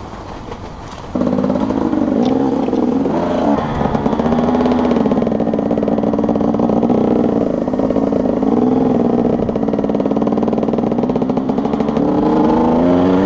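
Enduro motorcycle engine running under way, its pitch rising and falling with the throttle. It gets much louder suddenly about a second in.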